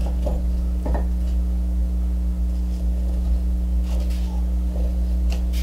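A steady low electrical hum, with a few faint soft scrapes and taps as a hand spreads wood glue over the end-grain blocks.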